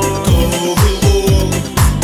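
Pop song music: a steady beat of deep drum hits under held chords.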